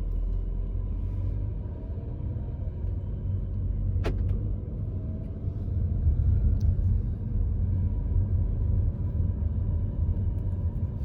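Car cabin noise while driving: a steady low road and engine rumble, with a sharp click about four seconds in.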